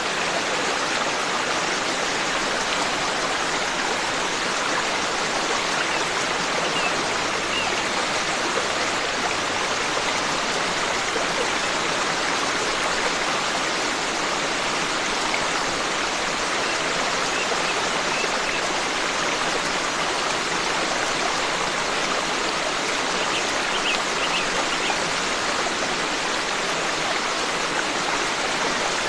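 Forest stream flowing in a steady, even rush of water.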